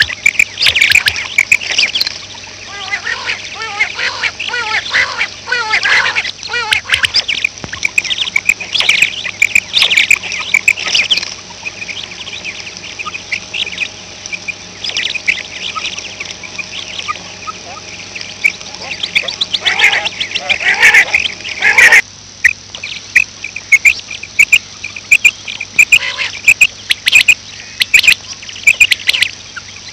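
Female quail (batair) calls, the 'kirk' call: many short, harsh calls in quick runs, thinning out in the middle and coming thick again near the end, over a steady low hum from the recording.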